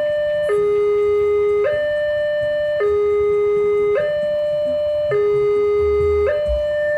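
Railway level-crossing warning alarm sounding a two-tone electronic signal, switching between a higher and a lower steady note about once a second. The signal is the warning that a train is approaching while the barriers are down.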